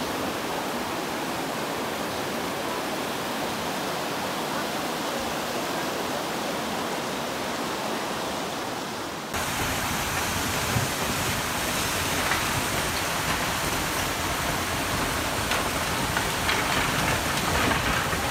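Steady roar of the flooded Kuma River rushing past. About nine seconds in it cuts abruptly to a fuller, deeper rushing noise of heavy rain, with scattered faint ticks.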